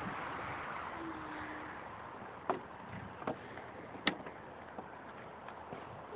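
Steady hiss with a few sharp clicks, the loudest about two and a half and four seconds in, as the camera is handled around a stationary scooter whose engine is not yet running.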